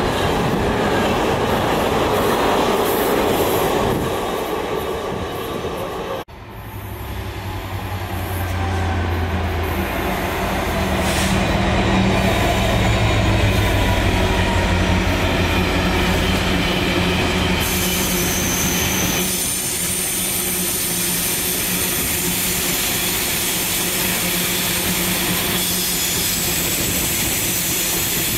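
Freight wagons loaded with shipping containers running past close by. After a cut about six seconds in, a Class 66 diesel locomotive goes by with a steady low engine tone that fades about two-thirds of the way in, leaving the noise of a string of open wagons running over the rails.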